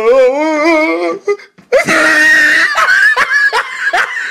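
Boys laughing loudly: a long wavering laugh, a short break, then a loud drawn-out voice about two seconds in that breaks into rhythmic bursts of laughter, about three a second.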